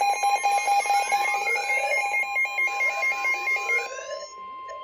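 Emergency weather alert tones: a steady NOAA Weather Radio 1050 Hz warning tone, overlaid by the fast, evenly pulsing alarm beeps of weather alert receivers going off together. The beeps stop about four seconds in, while the steady tone holds.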